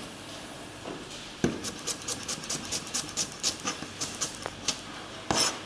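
Chinese cleaver slicing shallots on a wooden chopping board: a sharp knock about a second and a half in, then quick even chops about five a second, and one heavier knock near the end.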